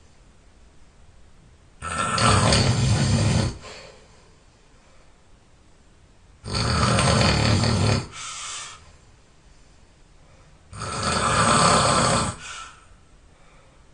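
A person snoring loudly: three long snores, each about a second and a half, coming roughly every four and a half seconds with quiet breathing gaps between.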